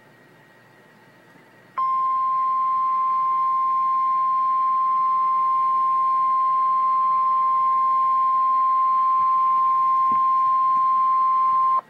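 NOAA Weather Radio's single-tone 1050 Hz warning alarm, a steady loud beep held for about ten seconds that starts abruptly after a moment of faint hiss and cuts off sharply. It is the attention signal that comes before an emergency weather alert message, here a severe thunderstorm watch.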